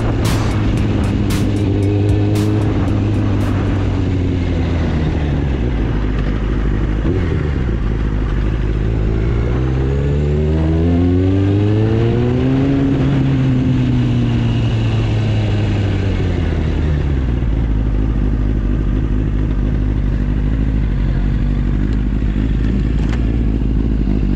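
Kawasaki Ninja ZX-9R's inline-four engine heard from the rider's seat: the revs drop, climb for a few seconds, then fall away again. Over the last several seconds it settles to a steady idle as the bike comes to a stop.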